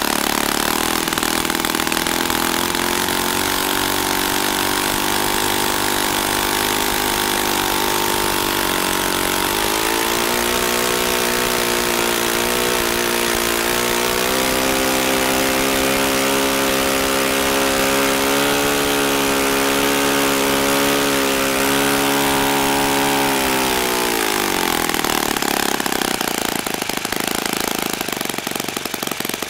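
Saito FA-40 single-cylinder four-stroke glow engine running on a test stand with a propeller. It runs at low speed, is throttled up about ten seconds in to a steady high-speed run near 8,400 rpm, and drops back to a slow, uneven idle with separate firing beats near the end.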